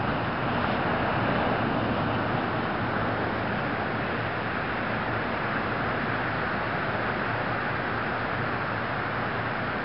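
Steady wash of ocean surf on the beach, swelling slightly about a second in.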